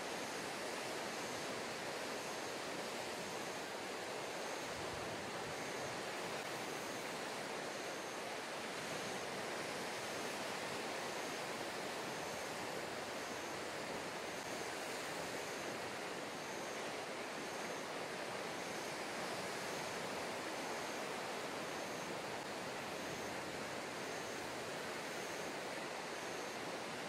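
Steady seaside ambience of rippling harbor water washing against a concrete quay, mixed with light wind, an even hiss with no sudden sounds. A faint short high chirp repeats about once a second.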